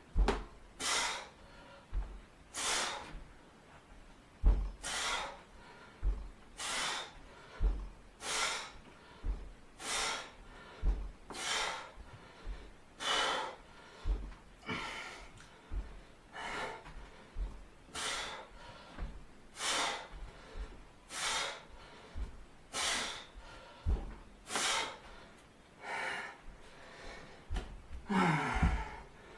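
A man breathing hard and rhythmically during a leg workout, a forceful breath in or out about once a second, with faint low thumps under some breaths. A short voiced grunt falling in pitch comes near the end.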